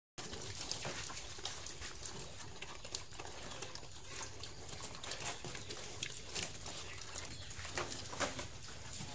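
Young pigs eating dry meal from a concrete trough: a steady run of irregular wet smacking and chewing clicks.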